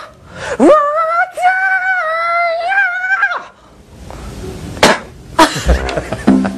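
A high-pitched singing voice holds a long note, sliding up into it, and breaks off about three and a half seconds in. Then come laughter and commotion with two sharp slaps close together near the end.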